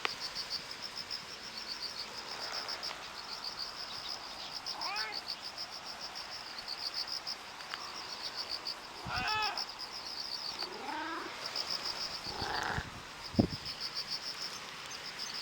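A cat meows several times, short calls a few seconds apart, over the steady fast pulsing chirp of insects. A single sharp knock comes near the end.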